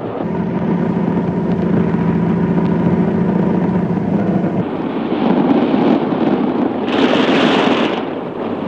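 Loud, steady rumbling noise with a low held tone through the first half, then a hissing surge about seven seconds in.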